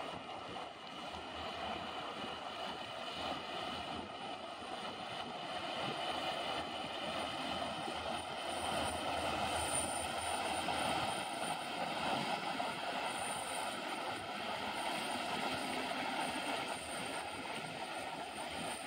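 Engine of a two-deck Amazon passenger riverboat droning steadily as it passes close, mixed with the rush of its bow wave; it grows louder to a peak about halfway through, then eases slightly.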